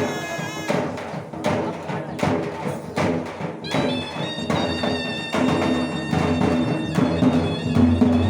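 Loud festival band music: a reedy wind instrument playing sustained melody notes over a steady drum beat, roughly one strike every three-quarters of a second.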